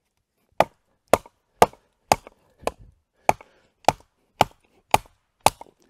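A baton striking the spine of a Joker Nomad knife about ten times, roughly two blows a second, driving the blade through hard beech wood. The wobbly chopping base vibrates and soaks up the force, so the split takes many blows instead of two.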